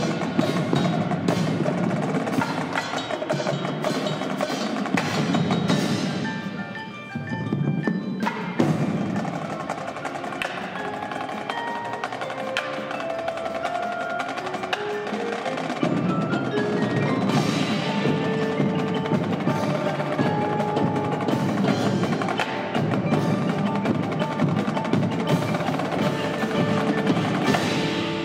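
Indoor percussion ensemble playing: marimbas and other mallet keyboards over a marching battery of snare, tenor and bass drums. The music thins briefly about seven seconds in, then fills out again with heavier low drums about sixteen seconds in.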